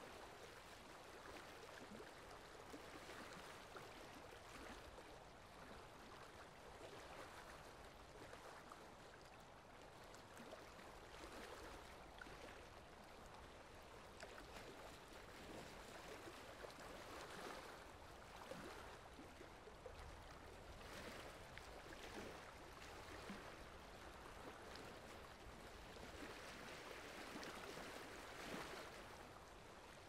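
Faint, steady lapping of small waves on calm water at night, a soft wash with small irregular swells.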